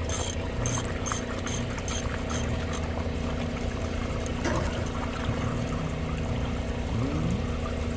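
Water pouring and splashing over the steady hum of a running dewatering pump, with a few sharp clicks in the first few seconds.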